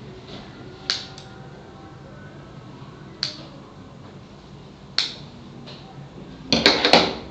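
Scissors snipping a coffee-cup holder: single sharp snips a second or two apart, then a quick run of louder snips and clicks near the end.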